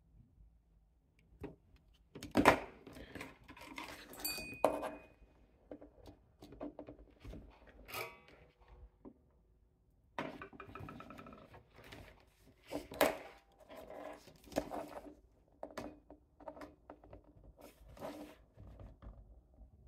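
Small tools and model parts handled on a workbench: irregular knocks, clicks and clinks. The loudest knock comes about two and a half seconds in, and a short ringing clink follows about four seconds in.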